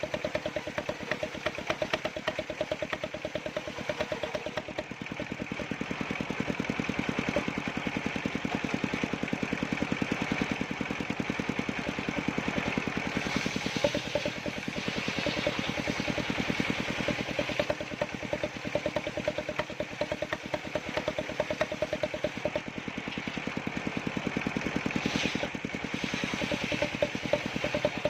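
Small engine running steadily with a fast, even firing beat, the power unit of an engine-driven wood-cutting circular saw.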